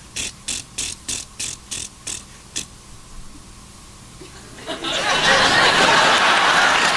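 A run of about eight sharp clicks, about three a second, made by a performer as an improvised sound effect. About two-thirds of the way through, a studio audience's laughter and applause starts and keeps up loudly.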